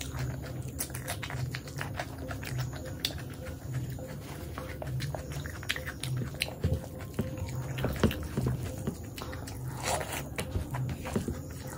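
A person eating close to the microphone: chewing and mouth smacks, with frequent short, sharp clicks.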